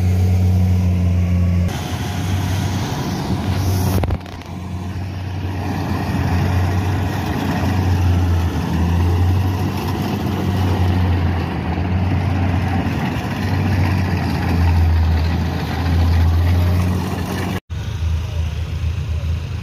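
Kubota combine harvester running while cutting and threshing rice: a steady low engine hum under a wide wash of machine noise, the hum swelling and easing every couple of seconds.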